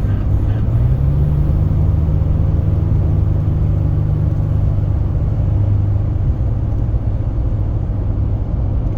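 2012 Ford F-150 engine running with a loud, low drone, the weird noise that the owner links to its cold air intake. The hum steps up in pitch about a second in, holds steady, and eases off after about six seconds.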